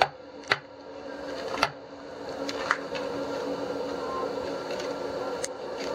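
A bamboo knife handle knocked against a wooden block, five short, sharp knocks spread unevenly, the loudest at the very start. Under them runs a steady mechanical hum from the workshop machinery.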